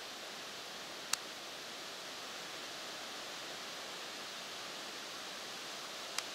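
Steady hiss of wind through the forest leaves, with two short, sharp clicks, one about a second in and one near the end.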